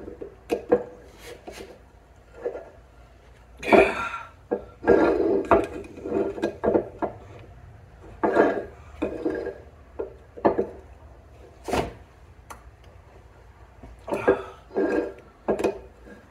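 A hooked pry tool working at an old shaft seal in a Simplicity 725 bevel gearbox housing: irregular metal scrapes, rattles and clanks, with a couple of sharper knocks as the tool slips or strikes. The seal is stuck fast and not coming out.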